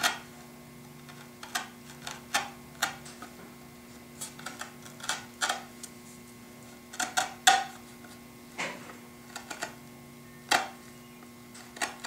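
A hand chisel paring the inside of half-blind dovetail joints in a poplar drawer part: a run of short, irregular cutting clicks and scrapes, roughly one or two a second.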